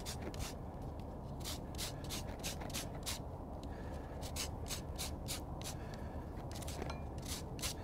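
A lemon rubbed back and forth on a fine rasp grater (microplane), zesting: short rasping strokes, two or three a second, with a brief pause near the middle.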